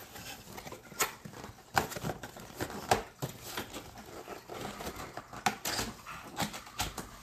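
Hands handling a cardboard box on a wooden table: scattered light taps, scuffs and rustles of cardboard as the box lid is pressed and handled.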